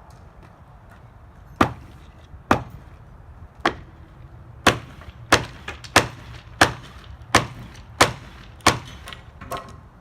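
Repeated sharp blows on wooden concrete formwork as it is knocked loose and stripped off poured concrete. There are about a dozen strikes: a few spaced apart, then a steady run of roughly one and a half a second.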